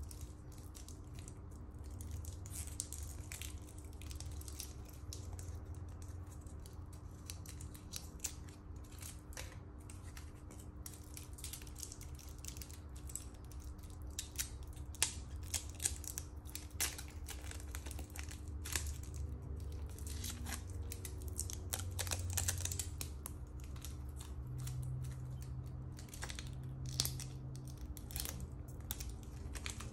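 Clear protective plastic film crinkling and tearing as it is peeled from a watch's metal bracelet and clasp, with many small irregular clicks and rattles of the bracelet links.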